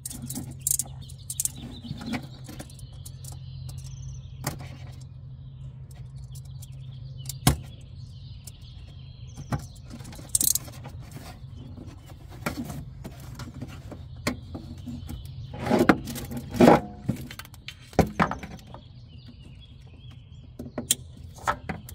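Hands handling a trailer-hitch wiring harness and plastic trim in a car's cargo area: scattered clicks, knocks and rustles, a couple of them louder about two-thirds of the way through. Underneath runs a steady low hum, with faint bird chirps.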